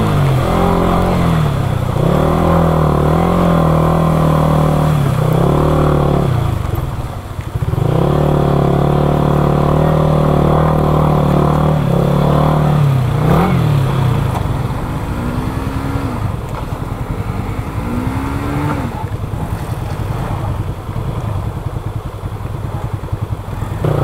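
Yamaha R15 V3's 155 cc single-cylinder engine running under load on a rough dirt track. It holds a steady pitch, with the throttle closed briefly about seven seconds in and a short rev about thirteen seconds in. In the second half it runs quieter and more unevenly, with a couple of short throttle blips.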